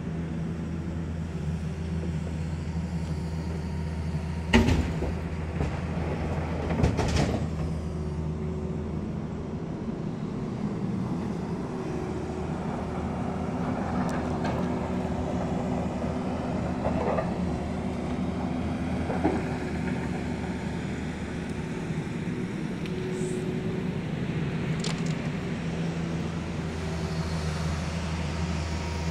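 Heavy diesel machinery running steadily, a low engine hum, with a few sharp knocks between about four and seven seconds in.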